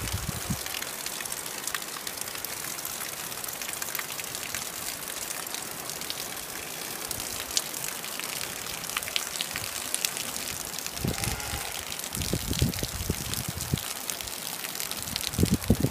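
Steady rain falling, with many small drop ticks and a stream of water running off a roof edge. A few low rumbles come about two-thirds of the way in and again near the end.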